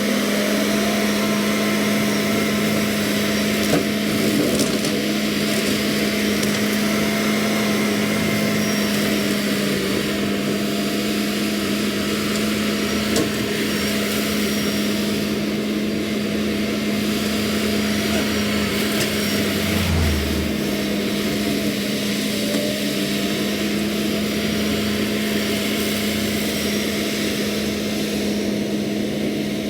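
John Deere 317 skid steer running with its hydraulic brush hog spinning, a steady hum under a wash of noise. Scattered cracks and snaps come from brush and sticks being cut, with a brief low rumble about two-thirds of the way through.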